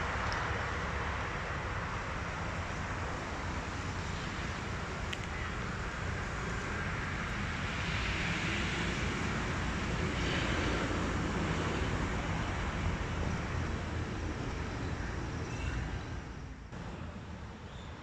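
Steady rumble of passing road traffic, swelling now and then as vehicles go by, then dropping off near the end.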